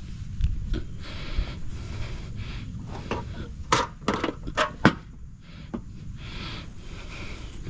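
PVC conduit knocking and scraping against an electric PVC conduit heater as it is handled, with a cluster of sharp knocks about four to five seconds in, over a steady low rumble.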